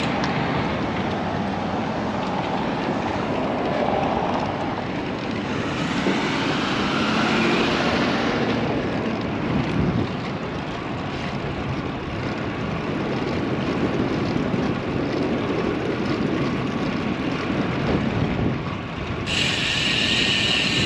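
Steady rushing wind and tyre noise from riding a road bike, with wind buffeting the action-camera microphone. The hiss grows brighter near the end.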